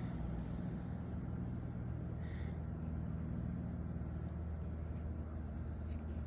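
Steady low mechanical hum and rumble, like a running engine or passing traffic, with a faint short high note about two seconds in.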